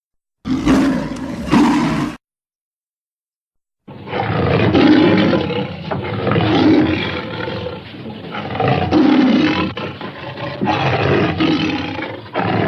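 Tiger roaring: one short roar, then after a brief silence a long run of repeated roars and growls, each a second or two long.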